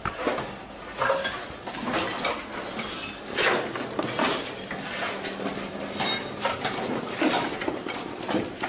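Hand tools and metal engine parts clinking and knocking repeatedly at irregular intervals, the sound of work in a car's engine bay during engine removal.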